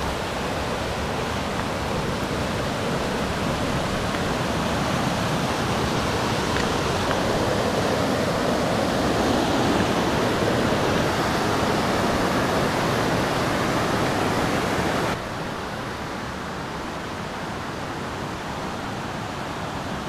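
River water rushing over rock rapids and a small cascade, a steady even rush. About fifteen seconds in it cuts suddenly to a quieter steady rush.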